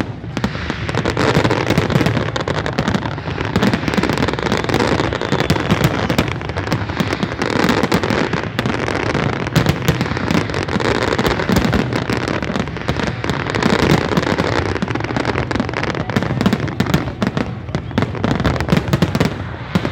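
Aerial fireworks display at full barrage: many shells bursting in quick succession, a dense, unbroken run of bangs and crackles.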